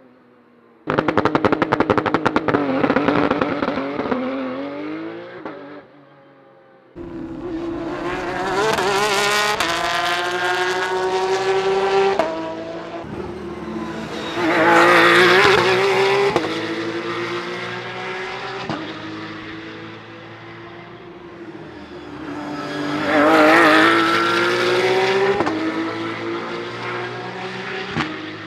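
Porsche 911 GT3 Cup race cars' flat-six engines in a run of clips. About a second in, an engine is held at high revs with a rapid crackle, then its note drops. After a brief gap, cars pull away, revving up through the gears, with two loud pass-bys, one near the middle and one near the end.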